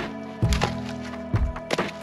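Background music: held chords over a steady beat of low drum hits.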